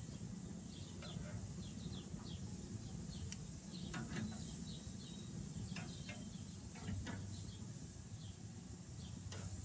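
Small birds chirping in short, scattered calls over a steady low rumble, with a few light clicks of metal tongs on the barbecue grill grate.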